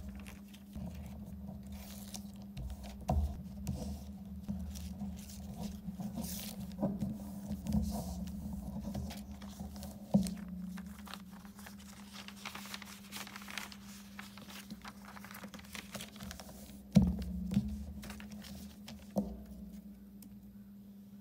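Sheets of patterned paper rustling and crinkling as they are folded and pressed flat by hand into an envelope, with a few sharp taps, the loudest about ten seconds in and again about seventeen seconds in. A steady low hum runs underneath.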